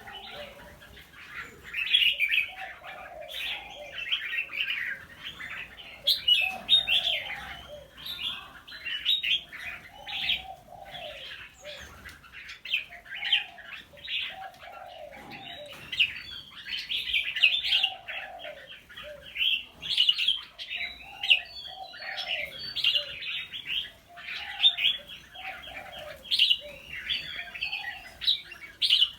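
Birds chirping busily without pause, with a lower cooing call repeating every couple of seconds.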